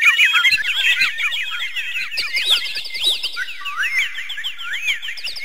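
A chorus of many birds chirping at once, dense quick high chirps mixed with whistled notes that rise and fall. It thins to more spaced whistles after about two seconds.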